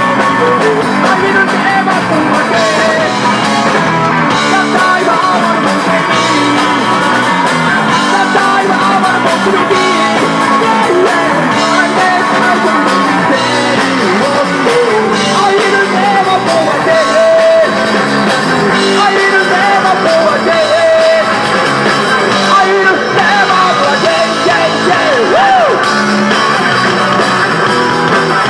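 Live rock band playing loud: electric guitar, bass guitar and drum kit, with a male singer singing into the microphone.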